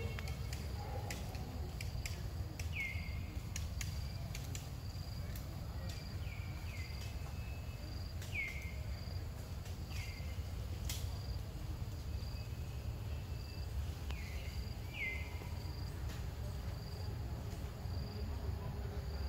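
Forest ambience: an insect chirps in a steady, regular high pulse about once or twice a second over a low steady rumble. Short falling calls come several times, and sharp clicks come a few times near the start and once louder about eleven seconds in.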